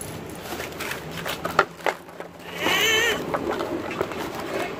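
A dog gives a short, high, wavering whine about halfway through, after a few sharp clicks.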